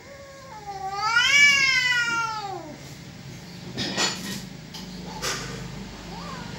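Cat caterwauling in a standoff with another cat: one long drawn-out yowl of about three seconds that rises and then falls in pitch, a threat call before a fight. Two short sharp clicks follow.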